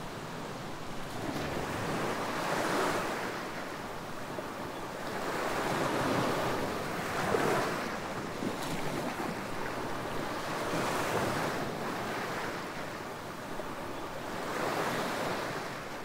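Small ocean waves washing up on a sandy beach, the surf swelling and fading four times, about every four seconds.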